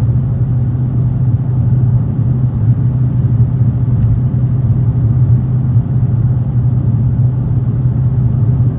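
Dodge Challenger Hellcat's supercharged V8 running while the car is driven, a steady low exhaust drone with no revving. The driver's-side exhaust has just been reconnected after a leak.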